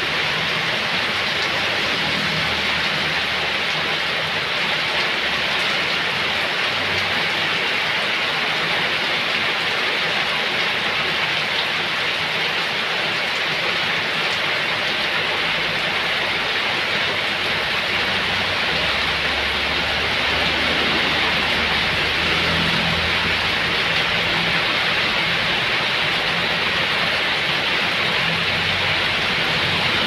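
Heavy rain pouring steadily onto wet ground and standing water, a dense, even hiss. In the second half a low rumble joins underneath.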